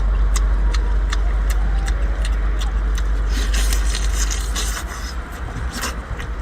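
A low, steady motor rumble with evenly spaced clicks, about two or three a second. The rumble drops away about three-quarters of the way through, and there are a couple of short crackly, rustling stretches.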